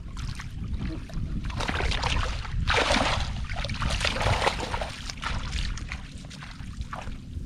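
Shallow floodwater splashing and sloshing, loudest about three seconds in, over a steady low rumble.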